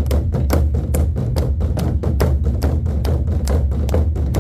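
Ensemble of Korean drums beating a fast, driving rhythm of sharp strikes at about five a second over a continuous deep boom.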